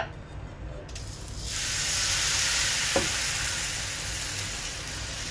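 Thin crepe batter poured onto a hot oiled pan, sizzling loudly from about a second in and slowly easing off as it is spread, with a light tap about three seconds in.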